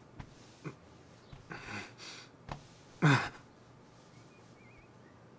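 Bedclothes rustling with a few soft knocks as a man is helped to sit up in bed, then a heavy sigh about three seconds in, falling in pitch.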